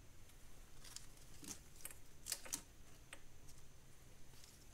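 A few faint, sharp clicks and taps, clustered about halfway through, from parts being handled by hand in a car's engine bay.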